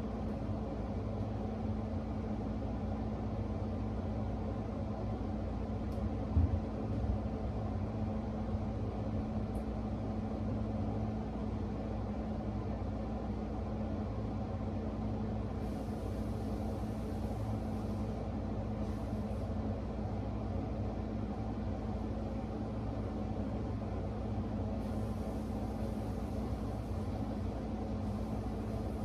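Steady low machine hum and rumble with a constant tone, and a brief low knock about six seconds in.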